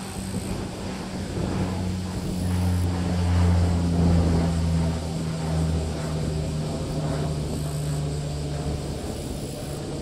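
Boeing 777-200 twin-engine airliner on landing approach. Its jet engines make a steady low drone that swells to a peak about three to four seconds in, then eases off slightly as it passes.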